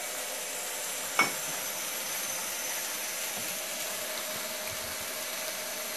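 Asparagus, collards and tomatoes sautéing in a pan, a steady sizzling hiss, with one short click about a second in.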